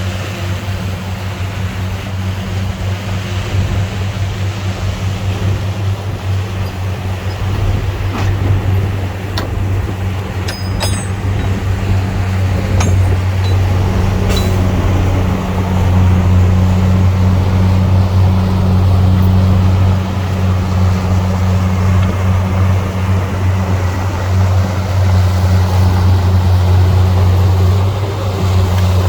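Heavy diesel engine of earthmoving equipment running under a steady low drone that grows a little louder about halfway through, with a few light metallic clinks near the middle.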